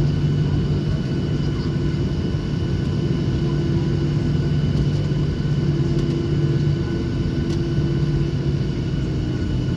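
Boeing 737-800's CFM56-7B engines at idle, heard inside the cabin as a steady low rumble with a faint steady whine above it.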